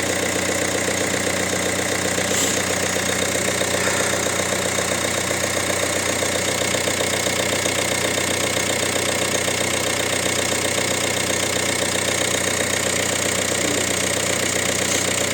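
Peugeot 1.5 HDI DV5RC four-cylinder turbodiesel idling steadily just after a cold start, with normal diesel clatter. This is a reference cold start with a new timing chain, tensioner and camshafts fitted, with none of the rattle that a sticking chain tensioner caused before.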